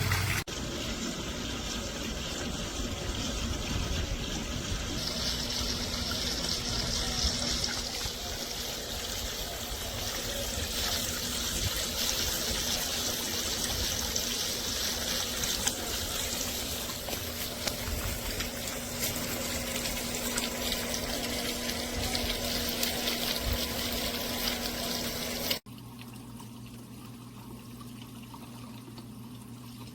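Water from an LED waterfall pool fountain pouring in a steady stream into an above-ground pool, a continuous splashing hiss. Near the end it cuts off suddenly to a much quieter background with a low hum.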